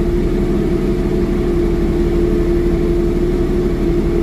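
Jeep XJ engine idling steadily while its belt-driven AC compressor, converted to an on-board air compressor, runs and pumps air through a hose into a low tire. A steady hum with one held tone over a low rumble.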